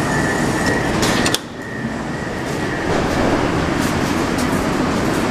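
Inside a Moscow Metro 81-765.2 car standing at a station: steady noise with a high steady tone, broken by a sharp clunk about a second in as the doors shut. After that the noise drops suddenly, then builds back up over the next second or two.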